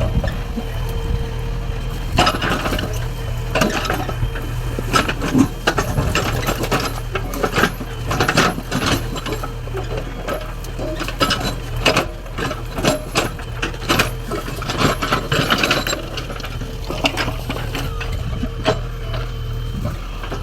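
JCB 3DX backhoe loader's diesel engine running steadily under a clatter of rock: many sharp knocks, clinks and rattles of stone against the steel bucket as it digs into stony ground.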